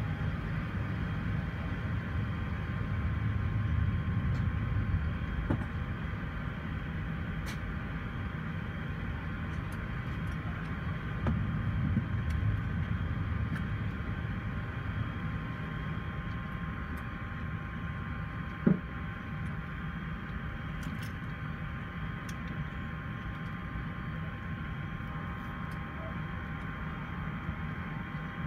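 Airbus A380 cabin noise while taxiing: a steady low rumble with a faint, steady whine over it. A single sharp clunk about two-thirds of the way through.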